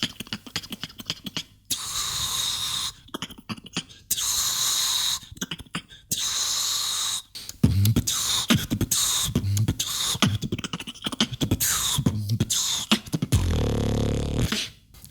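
A beatboxer making vocal percussion with the mouth. Long hissing notes are broken by clicks, then low kick-like hits come in a rhythm, and a deep buzzing bass note is held for about a second near the end.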